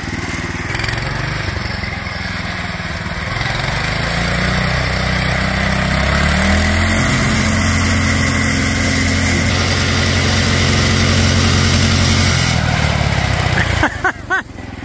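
DuroMax 208cc single-cylinder engine on a lawn-tractor go-kart, its governor removed, revving up as the kart accelerates away: the pitch climbs in two steps in the first half, holds high for several seconds, then drops near the end as the kart slows.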